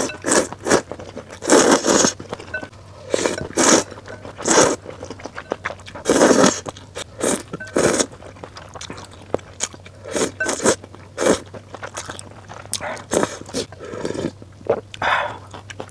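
Close-up slurping of snail rice noodles in spicy broth, with chewing and wet mouth sounds in irregular bursts every second or so. Near the end, broth is sipped from a wooden spoon.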